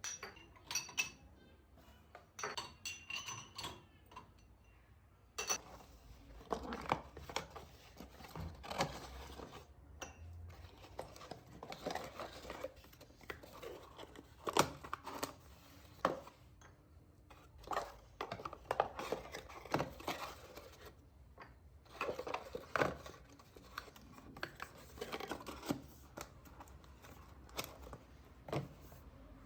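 Kitchen work sounds: dishes and utensils knocking and clinking at irregular intervals, with some rustling. There are a few ringing clinks in the first four seconds.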